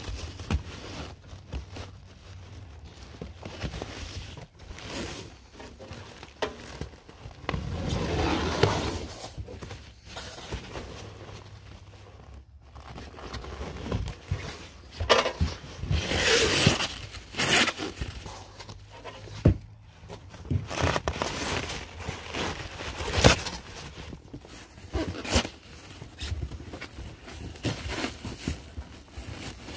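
Plastic wrap and foam packing sheets crinkling, rustling and tearing as they are pulled and cut away from a crated machine by hand. The sound comes in irregular bursts, the loudest a little past the middle.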